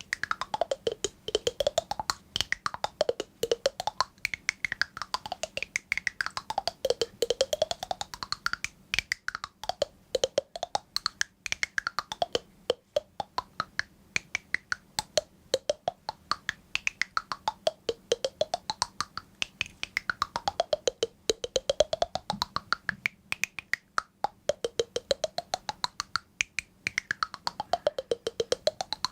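A fast, steady train of sharp clicks whose ringing pitch sweeps down and back up again every few seconds, like a repeating swoop.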